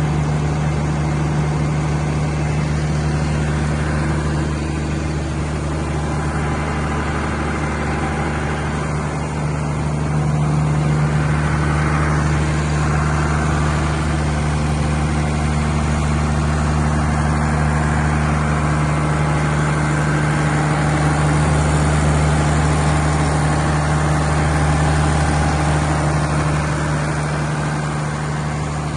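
180 kVA Cummins open-type diesel generator set running steadily, its diesel engine holding a constant deep hum.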